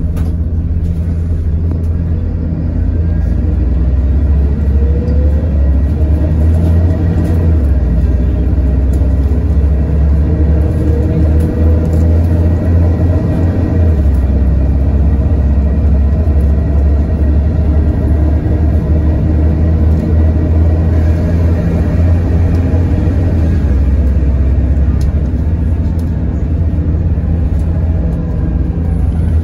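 City bus running along the road, heard from inside the passenger cabin: a steady deep engine and road rumble that grows a little louder about three seconds in.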